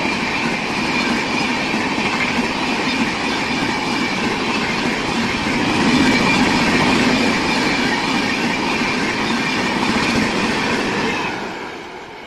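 Express passenger train of Indian Railways coaches passing close at high speed: a steady loud rush of wheels on rail with a faint high tone over it. The noise falls away sharply about eleven seconds in as the last coach passes and the train recedes.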